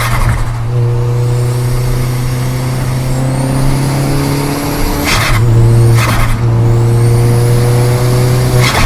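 Volkswagen Golf GTI Mk4's 1.8 20-valve turbo four-cylinder accelerating hard through the gears, its note climbing steadily, with a faint rising turbo whistle. Short rushing bursts of turbo flutter come at the gear changes: about five seconds in, again about a second later, and near the end.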